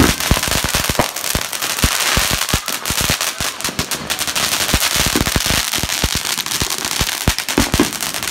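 Fireworks going off without pause: a ground fountain spraying sparks with a steady hiss, over a dense, irregular run of sharp firecracker pops and crackles.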